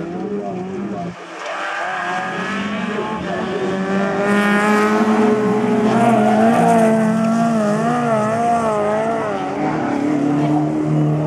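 Several rallycross cars' engines revving hard as the cars race past close by, their pitches rising and falling with throttle and gear changes and loudest about six seconds in.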